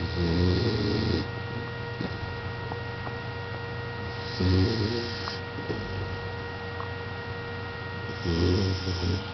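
A sleeping pet snoring: three snores, each about a second long and roughly four seconds apart, over a steady electrical hum.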